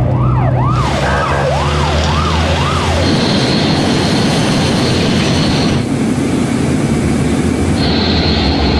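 A vehicle siren wailing up and down about twice a second, cutting off about three seconds in. A loud, even rushing noise comes in about a second in and carries on, with a steady high whine in it.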